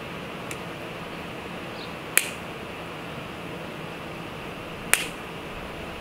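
Hand cutters snipping the ends off the ties on a rebar grid: two sharp snips, about two seconds in and again nearly three seconds later, over a steady hiss.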